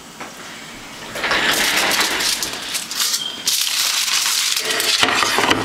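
Aluminium foil and used paper towels being crumpled up by hand: a loud, dense crinkling that starts about a second in.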